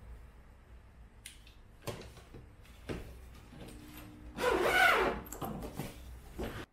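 A fabric tote bag being handled and packed: cloth rustling with a few light knocks, and a louder rustle of the bag about four and a half seconds in.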